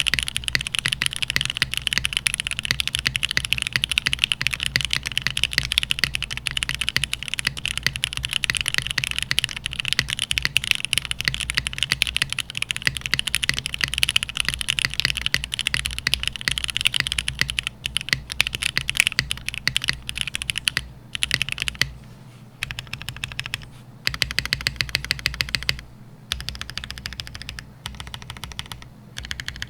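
Typing on a mechanical keyboard with stock, unlubed Gateron Oil King linear switches and GMK keycaps: fast, continuous keystrokes at first, then slower typing broken by short pauses, with single keys struck in even rows near the end. The switches carry noticeable spring and leaf ping.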